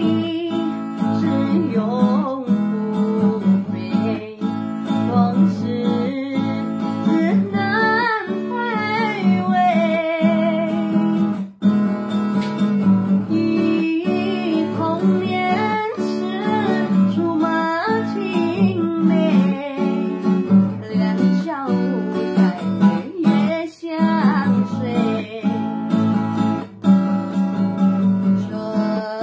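Acoustic guitar strummed as accompaniment to a woman singing a slow Mandarin ballad, her voice wavering with vibrato on held notes.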